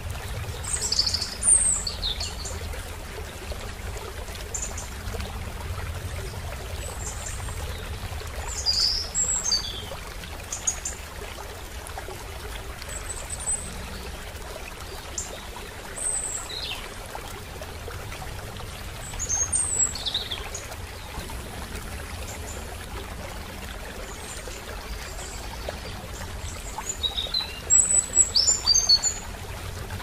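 A shallow stream rushing over rocks makes a steady water sound. Birds call now and then over it with short high chirps and whistles in small clusters, and the loudest burst of quick chirps comes near the end.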